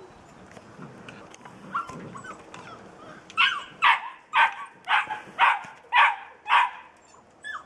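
A young puppy, almost eight weeks old, barking seven times in a steady run, about two barks a second, starting about three seconds in, after some faint scuffling and small yips.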